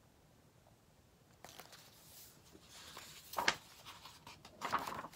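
Near silence, then about a second and a half in the paper pages of a picture book rustling as they are handled and turned, with two louder rustles in the second half.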